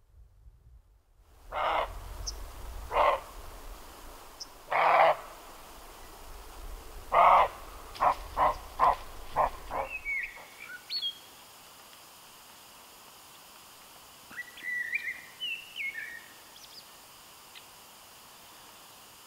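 Roe deer barking in alarm: hoarse single barks a second or two apart, then a quicker run of about six barks. About ten seconds in the barking stops, and a common blackbird gives short whistled phrases from a spruce top.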